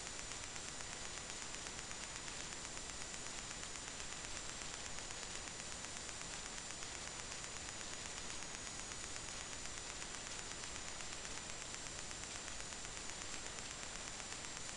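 Steady hiss with a faint, thin high-pitched whine and no other sound: the electronic noise floor of the recording.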